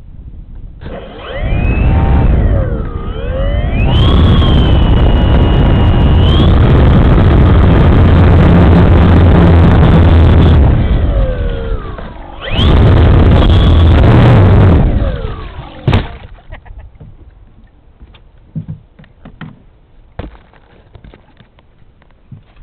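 Radio-controlled Super Cub floatplane's motor and propeller heard from on board while it taxis on water. It runs up with a whine that glides up and down with the throttle, holds high for several seconds, dips, then runs up once more before shutting off about fifteen seconds in. After that, a few light knocks.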